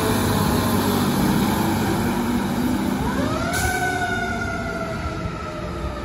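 Fire truck's siren wailing as the ladder truck pulls away: its pitch sinks slowly, sweeps up again about three seconds in, then slowly falls, over the low rumble of the truck's engine. The sound grows fainter near the end as the truck moves off.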